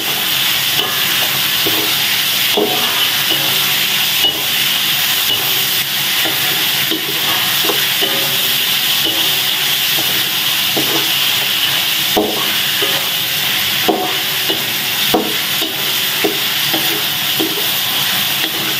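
Freshly added chicken pieces sizzling in hot oil with fried shallots and chilli paste in a metal wok. A wooden spatula stirs them, scraping and tapping against the wok at irregular intervals.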